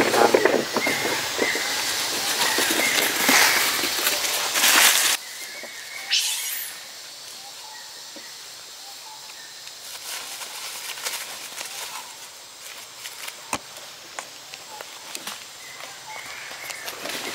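Rustling and scuffling in dry leaves as young monkeys wrestle, loud for about the first five seconds and then cutting down suddenly to a quieter forest background with scattered small rustles.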